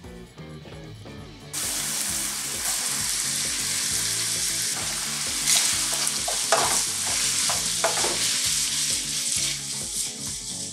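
Spaghetti sizzling as it is tossed and stirred with a wooden spoon in a frying pan of hot olive oil, garlic and pasta-water sauce. The sizzle starts suddenly about a second and a half in, with a few short knocks of the spoon in the middle.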